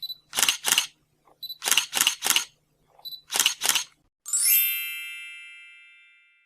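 Sharp clicks in quick groups of two, three and two, then a single metallic ring, like a struck bell, that fades out over about two seconds.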